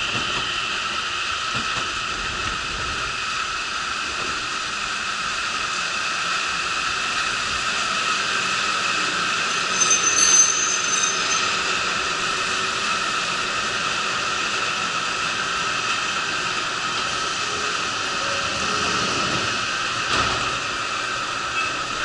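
Ohmi Railway electric train pulling in along the platform and slowing to a stop, with a steady running hum and a brief high squeak about halfway through.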